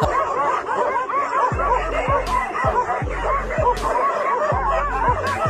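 A pack of dogs barking and yelping over one another, many barks overlapping without a break, over background music with a regular deep bass beat.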